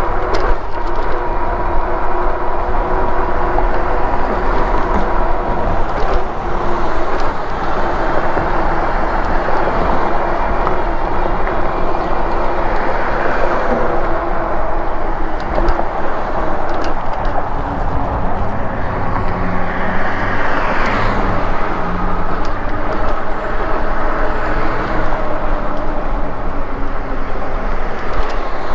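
Riding noise from an e-bike: wind buffeting the microphone and tyres running on concrete, with a steady whine from the bike's hub motor. A vehicle on the road alongside swells past about twenty seconds in.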